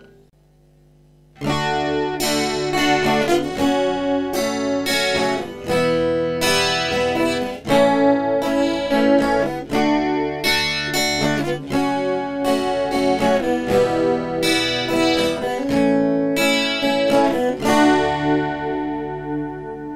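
Guitar playing chords through an Ashley Point 6 mixer's Multi Pad DSP effect. It starts about a second and a half in with repeated strikes, several a second, and rings out near the end.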